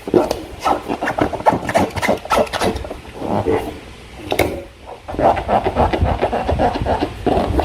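Slime being worked by hand: a quick, irregular run of sticky clicks and crackles, then from about five seconds in a denser run of rubbing, squelching strokes.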